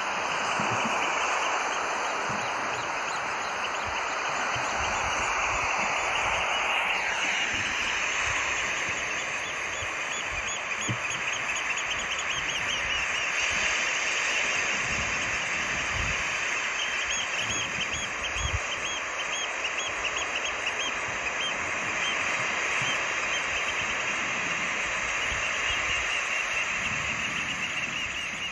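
Birds calling in a continuous chorus of rapid, repeated high chirps over a steady rushing background, with one falling sweep about seven seconds in.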